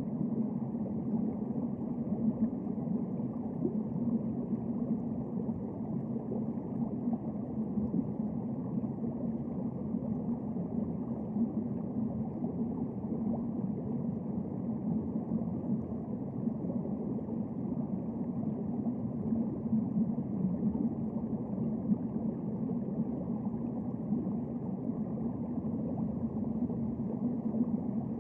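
Steady, muffled underwater rumble with a low hum, picked up by a submerged camera.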